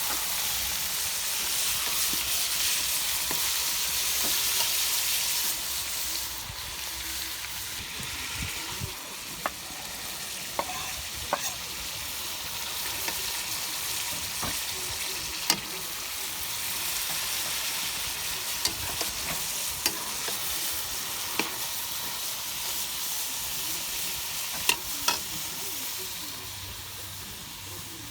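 Meat and vegetables sizzling as they fry in hot oil, a steady hiss with occasional sharp clicks scattered through.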